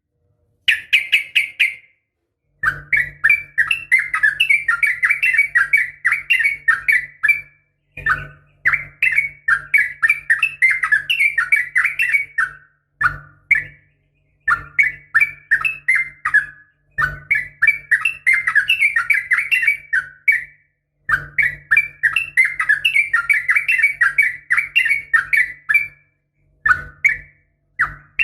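Sooty-headed bulbul (trucukan) song: long runs of rapid, bubbling whistled notes in phrases of a second to about five seconds, broken by brief pauses, with a faint low hum under each phrase.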